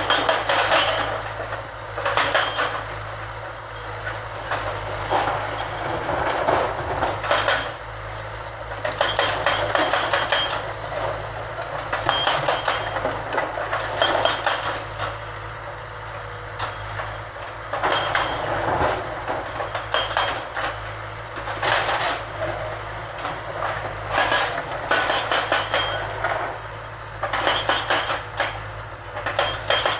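Hydraulic breaker on a Kobelco Yutani SK05 excavator hammering rock in repeated bursts of rapid blows, each about one to two seconds long with short pauses between and a metallic ring, over the steady running of the excavator's engine.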